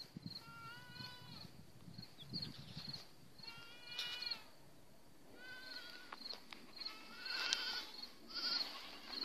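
Young goat kids bleating: four or five high, drawn-out calls spread a second or two apart, one of them with a quaver.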